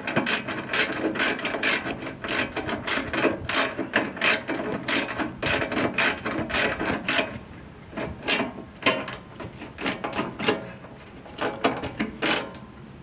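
Hand socket ratchet wrench clicking in quick back-and-forth strokes as a screw is turned. After about seven seconds the clicks come in shorter runs with pauses.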